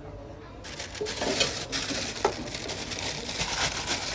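Packaging being handled, rustling and crinkling with scattered clicks and a few sharper taps, starting about half a second in.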